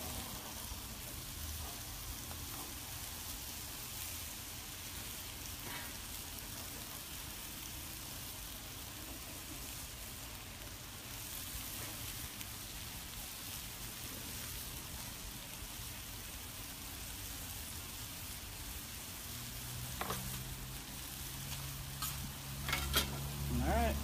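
Chicken and vegetables sizzling steadily on a Blackstone gas flat-top griddle turned down to its lowest setting. A few sharp clicks come near the end.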